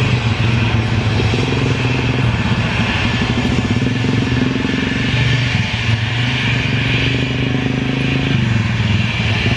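Small motorcycle engines idling close by, a steady low putter, with the hiss of an Airbus A320's jet engines at taxi power behind them.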